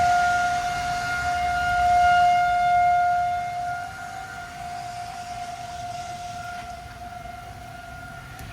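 Outdoor tornado warning siren sounding a steady tone, swelling about two seconds in and fading after about four seconds. It is the signal of a tornado warning.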